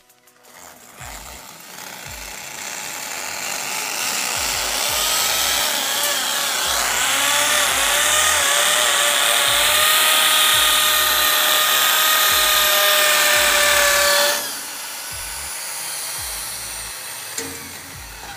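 Corded electric drill boring into a masonry wall through a steel hinge bracket. The motor's whine builds, then wavers in pitch under load for several seconds before dropping off sharply about two-thirds through. Background music with a beat plays underneath.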